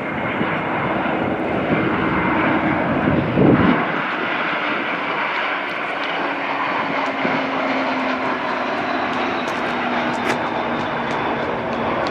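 Jet airliner engines running, a steady rushing noise with a low hum that slowly falls in pitch.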